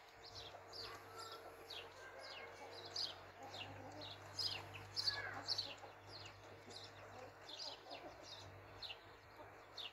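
Domestic chicks peeping constantly in many short, high, falling cheeps, with hens clucking low now and then among them.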